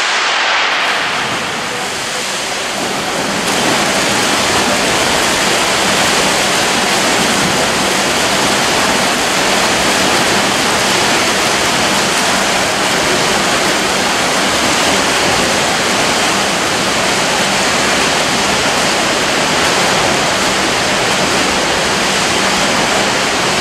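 Several swimmers racing front crawl in an indoor pool: a loud, steady rush of splashing water, which grows louder about three and a half seconds in.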